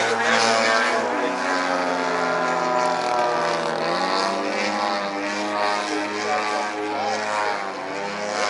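Radio-controlled model airplane flying overhead, its motor and propeller running steadily, with the pitch shifting up and down a few times.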